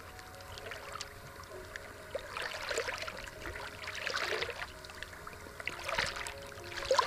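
Shallow seawater sloshing and splashing around a person's legs as they wade through it, in several uneven surges, the strongest near the end.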